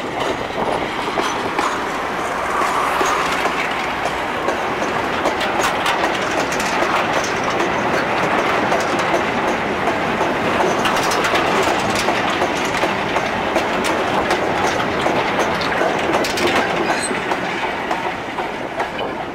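A goods train of four-wheel 'windcutter' mineral wagons rolling past close by, their wheels clattering over the rail joints, behind a Class 42 Warship diesel-hydraulic locomotive that passes in the first seconds. The brake van at the tail goes by near the end.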